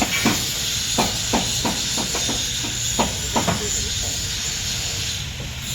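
Irregular sharp knocks of a hammer striking steel, about ten in the first three and a half seconds, over a steady hiss that thins near the end.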